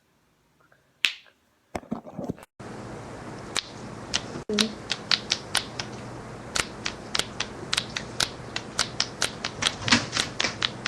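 Sharp cracking pops: a lone crack about a second in, a few more just before two and a half seconds, then a rapid, irregular run of pops, about two or three a second, over a low steady hum.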